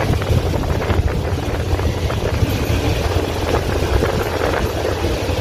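Passenger train moving slowly, heard from inside a carriage at an open window: a steady low drone with the rumble and scattered clacks of the wheels on the track.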